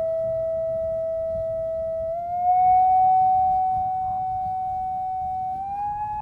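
Steady electronic test tone from a loudspeaker, its frequency raised in steps: it jumps up in pitch about two seconds in and again near the end, then cuts off suddenly.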